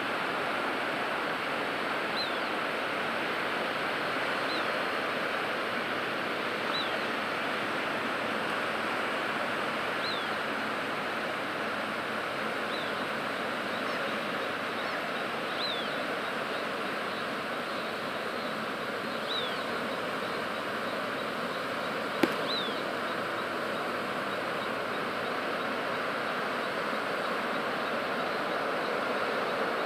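Steady rushing outdoor noise, with a bird giving a short, high chirp that falls in pitch, repeated every two to three seconds. One sharp click comes about three-quarters of the way through.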